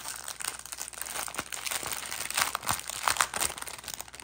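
Plastic packaging crinkling in irregular crackles as small plastic bags of diamond-painting drills are handled, loudest about two to three seconds in.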